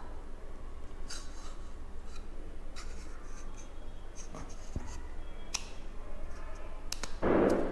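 Handling noises from closing a small NVMe SSD enclosure: light rubbing and scattered small clicks as the cover is slid shut, with a sharper click a little past halfway.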